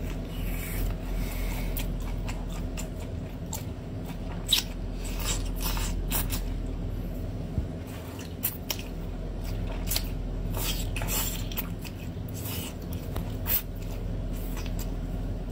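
Close-up eating sounds of a whole octopus: wet sucking, slurping and smacking as the tentacles are drawn into the mouth and chewed, with sharp lip and mouth clicks scattered throughout over a steady low hum.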